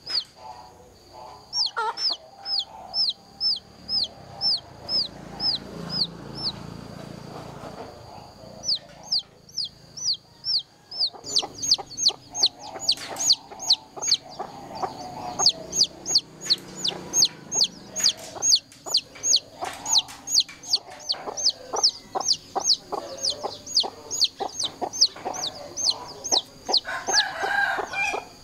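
A domestic chick peeping over and over in a loud run of high, downward-sliding peeps, about two a second. The peeps break off for a couple of seconds about a quarter of the way in, then come back faster, about three a second. This insistent, repeated peeping is the distress call of a chick left on its own.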